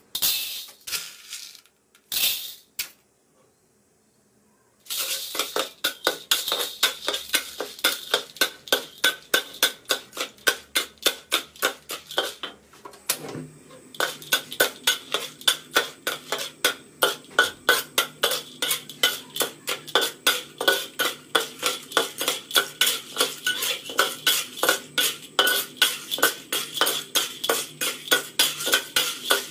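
Metal spatula scraping rhythmically around a large wok, about four strokes a second, stirring unpopped popcorn kernels in oil. A few short scrapes and a brief pause come first, and the steady stirring starts about five seconds in.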